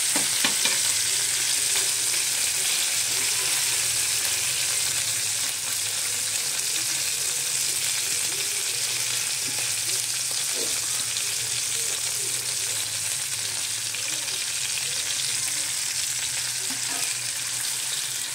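Small whole fish frying in hot oil in a nonstick pan, with a steady, even sizzle.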